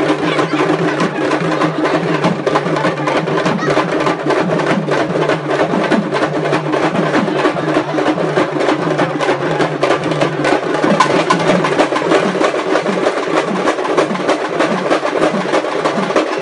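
Procession drums beaten hard in a fast, dense, unbroken rhythm with sharp cracking strokes, over a steady low tone.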